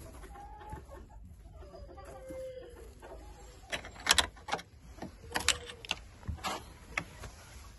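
Chickens clucking, with faint drawn-out calls in the first few seconds. From about halfway there is a run of sharp clicks and knocks, the loudest about four seconds in.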